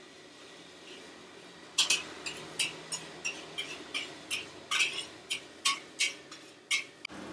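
Rapid, irregular clinking: about fifteen sharp metal-or-glass strikes in five seconds, starting about two seconds in.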